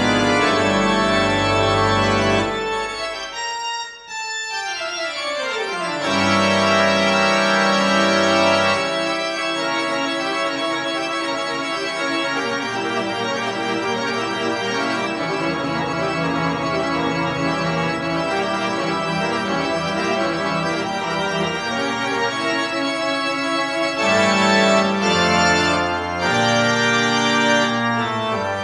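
Pipe organ playing: loud sustained chords, then a fast run falling in pitch to a brief pause about four seconds in, then full, held chords with moving inner notes.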